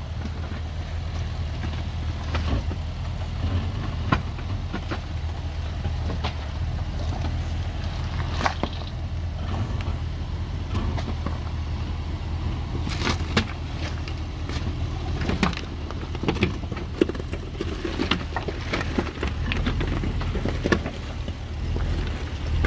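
Range Rover Sport's engine running steadily at low revs as the SUV crawls over loose rocks, with scattered crunches and knocks of stones under the tyres.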